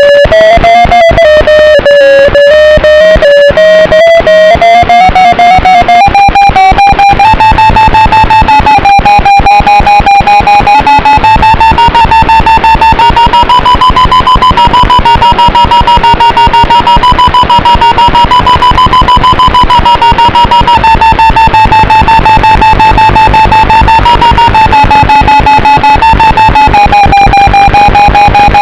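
Loud background music: guitar-led track with a fast, steady beat and a held high line that slowly drifts in pitch.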